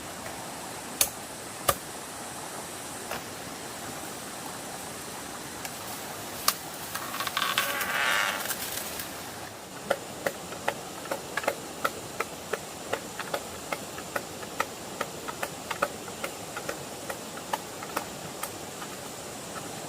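A steady rushing background with a few sharp knocks, a scraping rasp lasting about two seconds near the middle, then quick sharp taps, about three a second, until the end.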